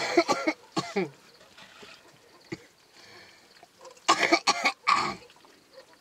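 A person coughing: a bout of coughs at the start, another single cough about a second in, and a second bout about four seconds in.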